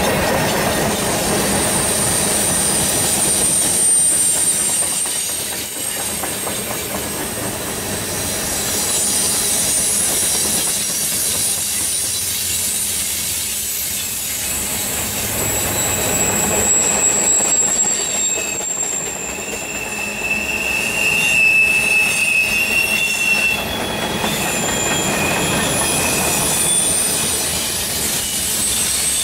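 Freight train cars rolling past with steel wheels squealing against the rails: long, high-pitched squeals, several at once, over a steady rumble of the cars.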